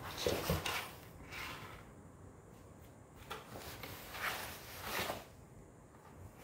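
Cardboard box scraping and rustling against a tile floor in several short bursts as a cat squirms around inside it, the loudest about half a second in.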